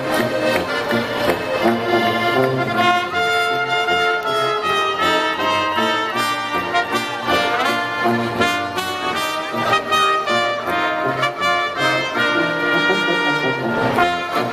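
Small Alpine-style band playing live: trumpet and trombone carry a lively melody over tuba and accordion, with a steady beat.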